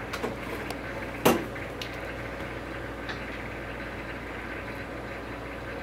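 Steady hum of a DeltaWrap 200 DVD overwrapping machine running. Over it come a sharp knock about a second in and a few lighter clicks as wrapped plastic DVD cases are handled and stacked.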